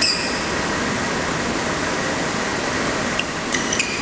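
Steady hum and hiss of a sports hall during a badminton rally. Short high squeaks of players' shoes on the court come right at the start and again from about three seconds in, with a few sharp ticks among them.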